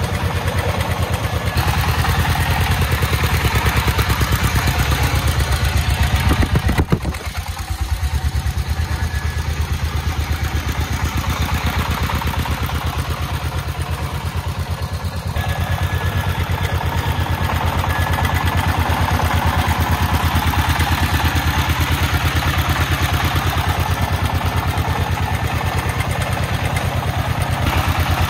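The 24-horsepower single-cylinder diesel engine of a three-wheeled công nông farm truck, running close by with a fast, even chugging while the truck creeps along. It swells briefly around six seconds in, then eases off and runs on steadily.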